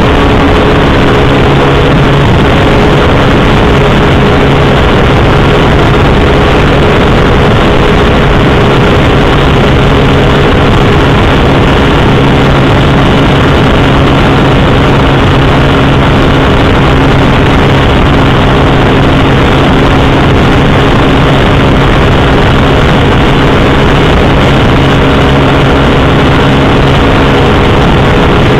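Motorcycle engine running at a steady speed, a constant drone under heavy wind and road rush.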